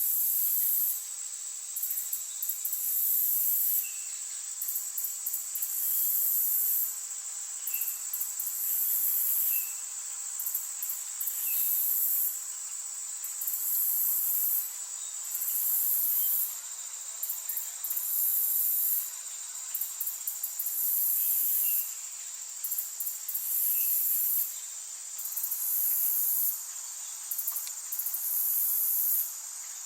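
Forest insect chorus: a very high buzzing that comes in repeated phrases about every two seconds, over a steady high hum, with faint short chirps scattered through it.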